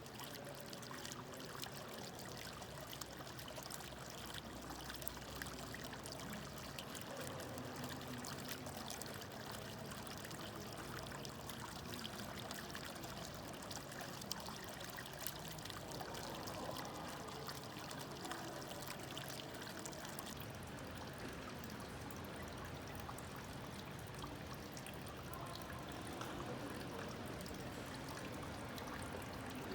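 Fountain water splashing and pouring steadily. About two-thirds through, the sound shifts to a different fountain with less hiss in the highs.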